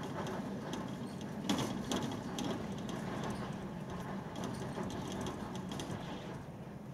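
Strong gusting wind against the house, with a steady rush and scattered rattling knocks, the loudest about a second and a half in.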